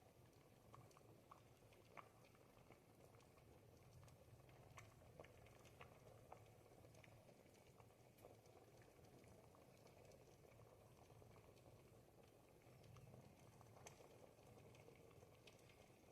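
Thick ribollita soup simmering in a pot over the fire: faint, soft bubbling with small irregular pops and ticks.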